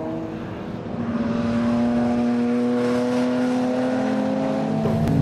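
A racing car's engine running hard at high, near-steady revs.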